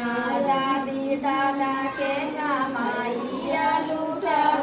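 A high voice singing a slow melody in long, held notes that bend in pitch.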